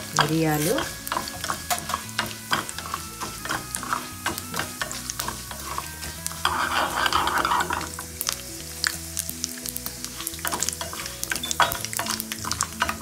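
Oil sizzling in a small nonstick pan as urad dal, mustard seeds and black peppercorns fry for a tempering, with sharp crackles and pops from the seeds throughout. A spatula stirs and scrapes the pan. The sizzle swells into a louder hiss for a second or two around the middle.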